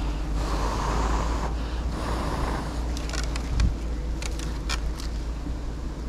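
Low rumble of wind buffeting the microphone, with rustling and then a run of sharp clicks and scrapes in the second half, and one thump about three and a half seconds in.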